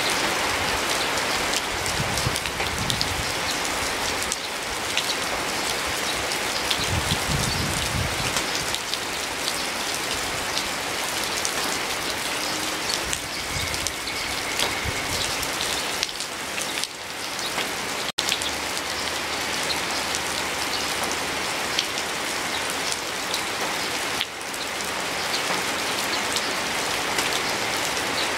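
Steady rain falling, an even hiss dotted with many sharp, close drop hits. The sound cuts out for an instant about two-thirds of the way through.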